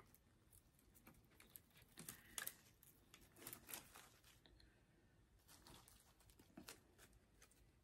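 Faint rustling and crackling of artificial tulip stems and plastic leaves being handled and pushed into a woven grapevine wreath base, with scattered soft clicks, most of them between two and four seconds in.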